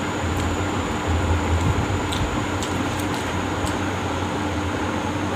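Steady whooshing hum of an electric fan running, with a few faint clicks from the steel plates and from eating rice by hand.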